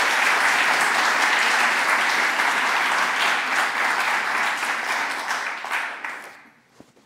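Audience applauding, a dense steady clapping that dies away about six seconds in.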